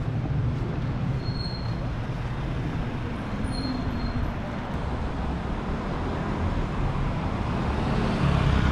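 Steady low rumble of city traffic, with two faint, brief high-pitched tones about one and three and a half seconds in.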